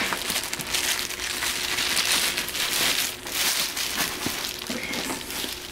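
Clear plastic wrapping crinkling and a cloth dust bag rustling as a plastic-wrapped handbag is pulled out of the drawstring bag, in irregular swells.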